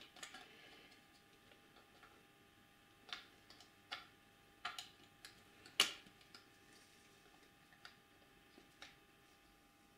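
Scattered light clicks and taps of a Triumph Tiger 1050 starter motor's metal end cap being worked by hand onto the motor body, the loudest about six seconds in. The cap is reluctant to seat because its indexing marks are not quite lined up.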